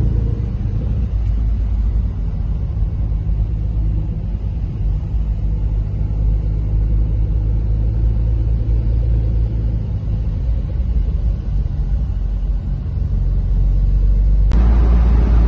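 Porsche 911 GTS Cabriolet's twin-turbo flat-six engine running at low road speed, a steady low rumble heard from inside the cabin. About a second before the end, a much louder rush of road and wind noise comes in suddenly.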